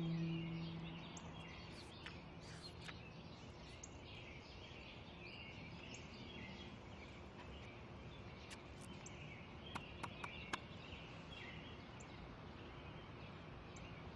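Outdoor park ambience with small birds chirping and twittering steadily throughout. A low ringing tone fades out in the first second, and a few sharp clicks come about ten seconds in.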